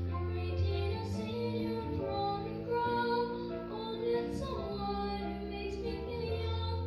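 A young girl singing a solo into a microphone, her held notes moving in pitch, over musical accompaniment with sustained low notes.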